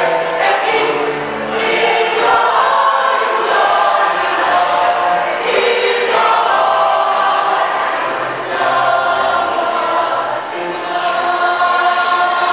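A choir singing in several parts, holding long chords that change every second or two.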